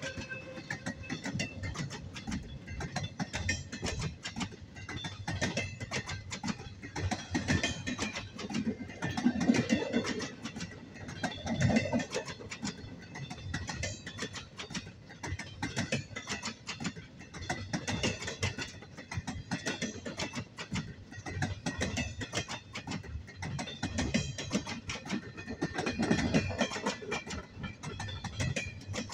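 Freight train of empty double-stack well cars rolling past: a steady rumble of steel wheels on rail, thick with rapid clacking and rattling. It swells louder a few times as cars go by.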